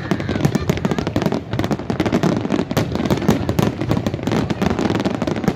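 Fireworks display at full barrage: a dense, continuous run of bangs and crackles from many shells bursting together.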